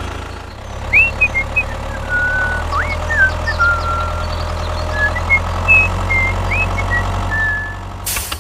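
A small vehicle engine running steadily at idle, with birds chirping over it.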